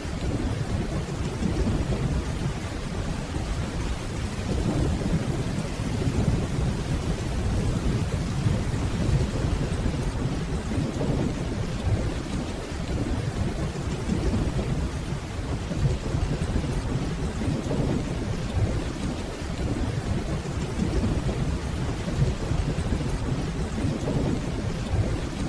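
Steady rainfall over a continuous low rumble of distant thunder, with no sharp claps.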